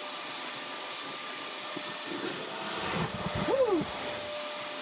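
Vacuum running steadily to pick up sawdust from drilling. About three and a half seconds in, a cordless drill spins up and back down briefly over it as it drills into the panel.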